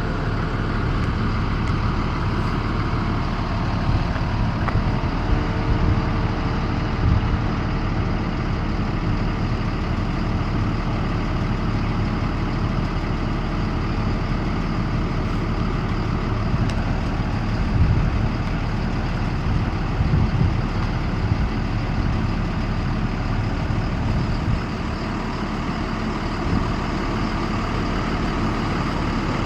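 School bus engine idling steadily.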